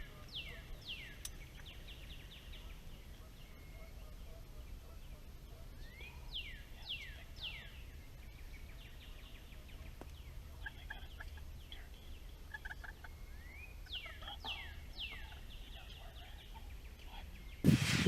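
Faint bird calls: a phrase of several clear downslurred whistles, repeated three times about seven seconds apart, over a steady low outdoor rumble. A sudden loud rustling noise comes at the very end.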